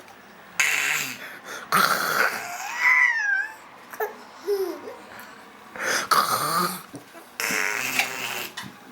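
A baby laughing and squealing, in turn with about four raspy, breathy 'monster' growls of about a second each.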